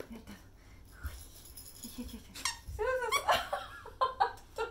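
A plush lion toy's built-in sound goes off about two and a half seconds in: a short run of rising-and-falling tones, set off by biting the tip of its tail.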